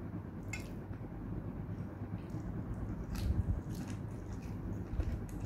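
A person eating by hand: soft biting and chewing with a few small mouth clicks, loudest around three seconds in, over a steady low hum.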